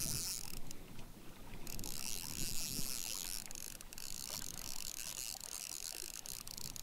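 Fishing reel ratcheting while a pike pulls on a bent rod: a short burst at the start, a pause, then a longer run of about five seconds.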